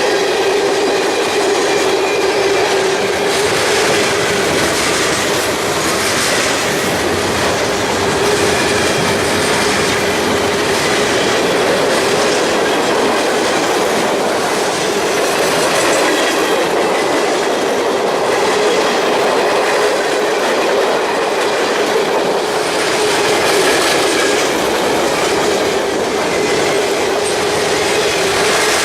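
Train cars rolling steadily past on the rails, wheels clacking over the track with a steady tone from the wheels on the rail.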